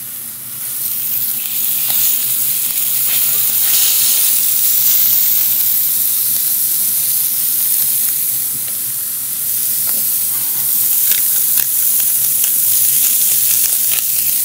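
Steak pieces searing in hot stainless steel frying pans, a steady loud sizzle: the meat is being cooked hard to burn its sugars onto the pan bottom. A few light clicks come near the end.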